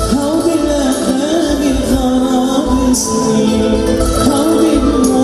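Live Arabic pop music: a male singer holds a wavering, ornamented melody over piano and keyboard accompaniment with a low pulsing bass.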